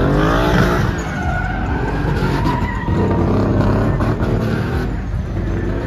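Truck engine revving, climbing in pitch in the first second, with tyres squealing over the rumble.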